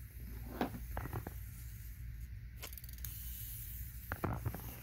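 A few light knocks and clicks of plastic toys and a plastic storage tote being handled, over a faint steady hiss.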